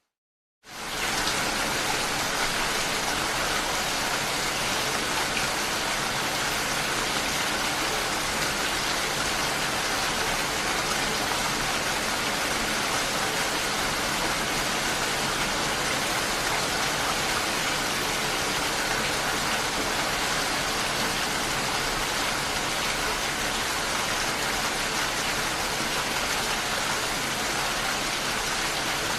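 Steady, even rainfall, starting abruptly just under a second in after a moment of silence.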